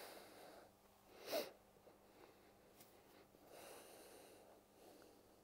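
Near silence, broken by one short, sharp breath out through the nose about a second in and a softer breath a couple of seconds later, from a person holding a deep leg stretch.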